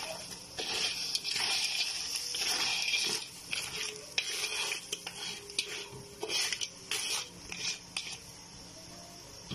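Whole crabs being stirred and turned in a sizzling sauce in a pan, giving uneven bursts of sizzling and scraping with each turn; the stirring thins out and quietens near the end.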